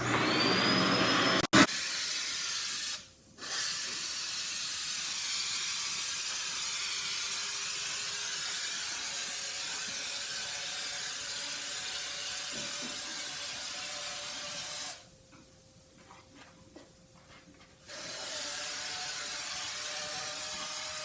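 Aerosol air-conditioner cleaning spray hissing in long bursts, with a short break about three seconds in and a longer pause of about three seconds around the middle to later part. A sharp click comes about a second and a half in.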